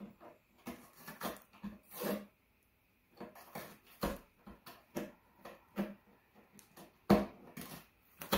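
A cat gnawing and tearing at a cardboard box: irregular crunching, crackling bites in bursts, with a short lull about two seconds in and the loudest crunch near the end.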